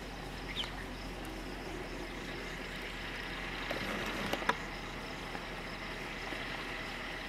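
Distant farm tractor engine running as it hauls a loaded trolley, under a steady high insect drone, with a short chirp about half a second in and a few sharp clicks around four seconds in.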